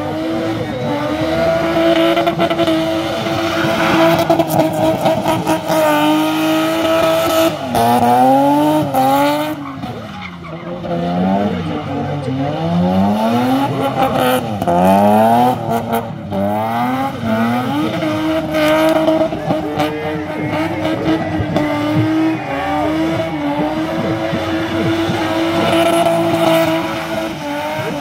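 Car engine held at high, steady revs while the car spins its rear wheels in doughnuts, with tyre squeal. Through the middle stretch the revs swing rapidly up and down as the throttle is worked, then settle back to a steady high pitch.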